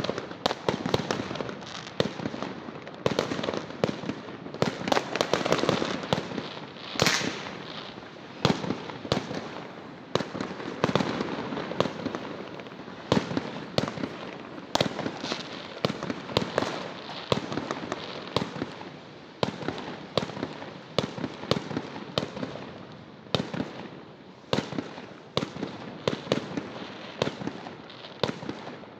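Fireworks going off in a dense, irregular barrage of sharp bangs and crackles, many overlapping, several a second, with no let-up.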